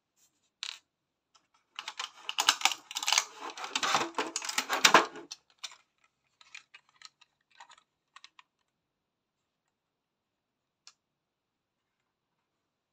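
Model bus being pulled out of its stiff plastic packaging tray: a dense run of plastic clicking and crackling from about two to five seconds in, then a few scattered clicks and one last click near the end.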